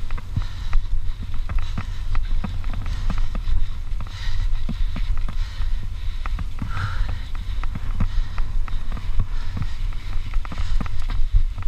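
Mountain bike ridden fast over a rough dirt trail: a constant low rush of wind on the microphone, with frequent irregular rattles and knocks from the bike jolting over ruts and bumps.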